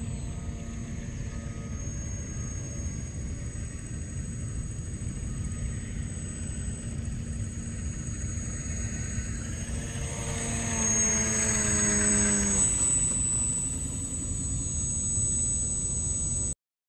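Radio-controlled Magnus-effect twin rotorcraft in flight: a steady high whine over a low rumble. About ten seconds in it grows louder as it passes close, its pitch falling, then fades, and the sound cuts off abruptly near the end.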